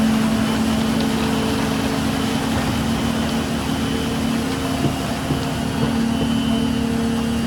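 Diesel engine of a truck-mounted concrete boom pump running steadily at an even pitch, with a few faint clicks around the middle.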